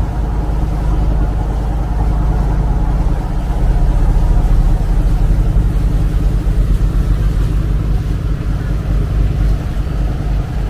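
Steady drone of a passenger riverboat's engine heard from on board while under way, with water rushing along the hull.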